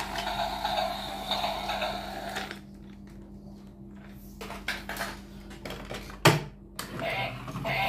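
Battery-powered toy train's motor and gears whirring while it is held, stopping about two and a half seconds in. Then light handling clicks, and a sharp plastic knock about six seconds in as a plastic toy is set down on the table.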